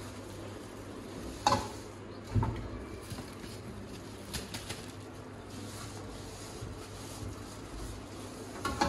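Mustard oil poured from a container onto spice-coated raw mango pieces in a plastic tub, with a sharp knock about a second and a half in and a dull thud just after, then a few light clicks, over a steady low hum.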